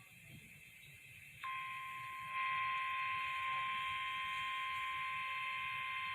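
Emergency Alert System attention signal on a radio broadcast, heralding a severe thunderstorm warning: after a fainter high tone, a loud steady electronic tone comes in about a second and a half in, grows louder about a second later, and holds without a break.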